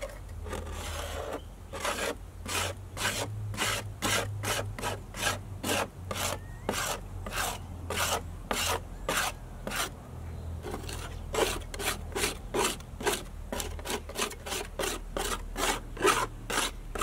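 Thin metal scraper dragged in quick repeated strokes, about two to three a second, across a fiberglass boat hull. It is scraping off house latex paint that citrus paint stripper has softened.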